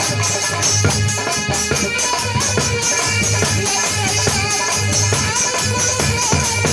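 Live Indian devotional folk music: an electronic keyboard playing held notes over a repeating low drum beat and sharp percussion strokes.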